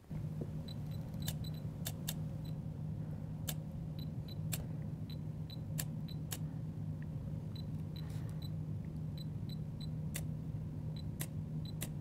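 Olympus OM-D E-M1 Mark III mirrorless camera's shutter firing again and again at irregular intervals, single clicks and quick pairs, over a steady low hum.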